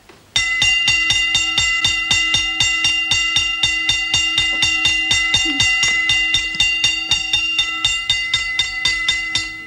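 Hand-cranked mechanical alarm bell ringing continuously, its clapper striking the red steel gong in a rapid, even rattle of about four or five strokes a second, sounding the roll-call alarm. It starts sharply and dies away near the end.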